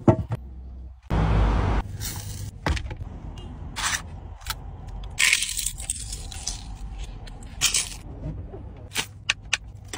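Sharp, separate crackles and crunches of a crisp papad (poppadom) being gripped and broken by hand, about one every second, after a short loud rustle about a second in.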